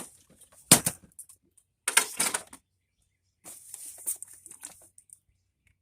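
Objects being handled and set down into a container: a sharp knock about a second in, a short clatter of knocks around two seconds, then softer shuffling and scraping.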